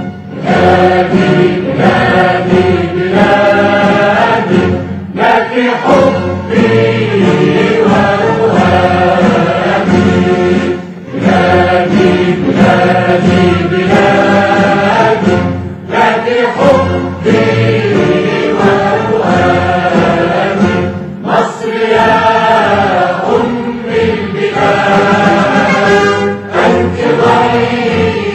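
A national anthem: a choir singing over an orchestra, in long phrases with brief pauses every few seconds.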